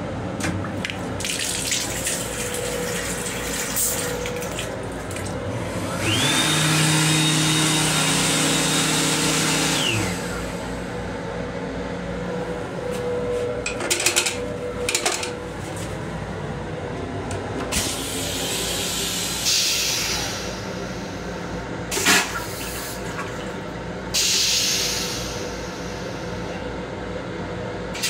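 The hand dryer in an M7 railcar restroom's combined dryer/faucet/soap sink unit blows for about four seconds: a loud rush of air with a motor whine that rises as it starts and stops abruptly. Afterwards paper towels are pulled from a dispenser with a few rustles and clicks, over the train's steady hum.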